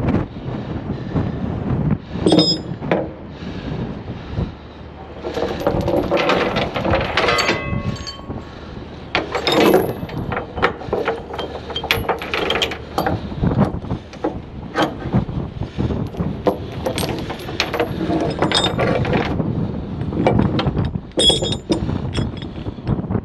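Steel tie-down chains clinking and clanking against the flatbed trailer's deck and frame, with a ratchet load binder being handled. The knocks come irregularly, some with a short metallic ring.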